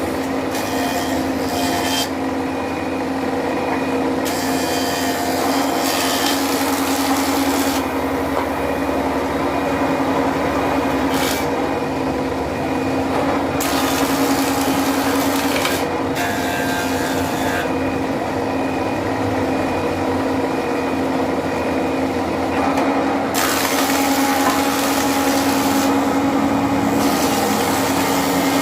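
A stationary woodworking machine running with a steady hum. Wood is fed through it several times, and each pass adds a rough, brighter cutting noise that comes and goes.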